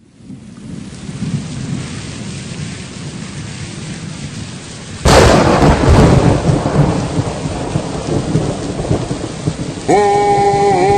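Steady rain hiss fading in, then about five seconds in a sudden loud thunderclap that rumbles away over several seconds. Near the end, music comes in with long held notes.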